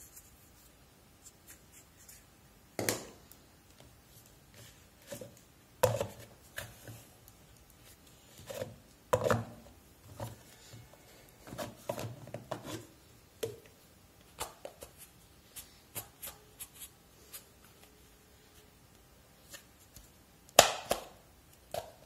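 Hard plastic parts of a steam vaporiser being handled and fitted together: scattered clicks, knocks and rubbing, with louder knocks about three, six, nine and twenty-one seconds in.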